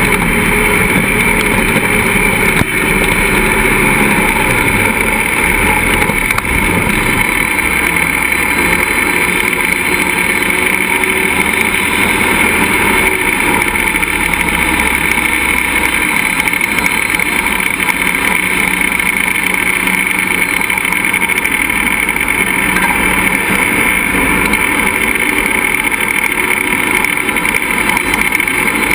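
Engine of a tube-frame 4x4 off-road buggy running continuously, heard close up from a camera mounted on its roll cage.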